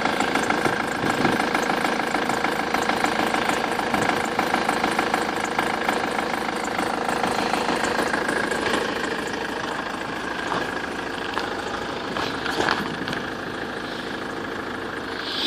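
BMW N47D20 four-cylinder diesel engine idling, with a steady whistle from the accessory drive belt over the engine clatter.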